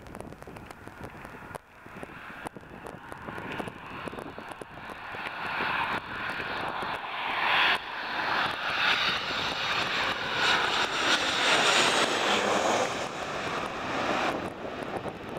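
Boeing 737-800's CFM56-7B turbofan engines at approach power as the jet passes low overhead on final approach, gear down. The jet noise and engine whine grow steadily louder, peak about two-thirds of the way in, then ease off with a falling pitch as the aircraft moves away.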